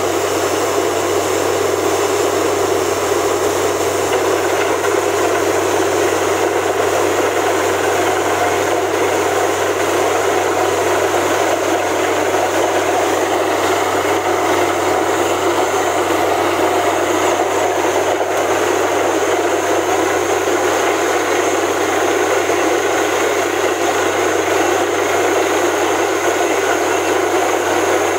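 Borewell drilling rig running, a loud, steady machine noise with a constant low hum.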